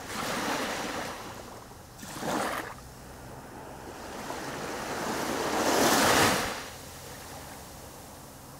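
Small waves washing up on a beach, in swells that rise and fall: a short surge about two seconds in and the loudest wash around six seconds in.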